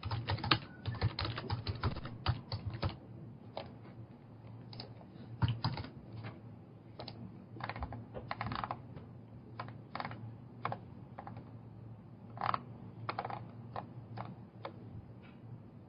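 Typing on a computer keyboard: a quick run of keystrokes, then slower, scattered key taps.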